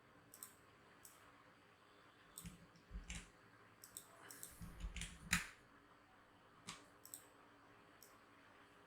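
Irregular clicks and taps of a computer keyboard and mouse, the loudest about five seconds in, over faint steady hiss.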